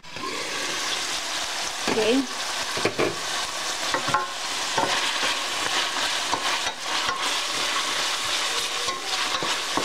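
Sliced marinated beef frying in hot oil in a stainless steel pan: a steady sizzle that starts suddenly as the meat goes in, with a wooden spatula stirring and scraping through the meat.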